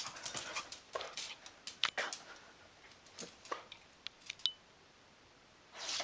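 Small dog tugging laundry out of a front-loading washing machine drum: rustling cloth and scuffling, with a few short whimpers, going quiet about four and a half seconds in.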